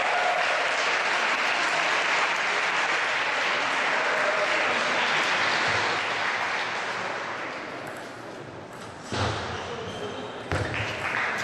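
Spectators applauding a won point in table tennis, fading out over several seconds. Near the end come a few sharp knocks of the ball on the bats and table as the next rally starts.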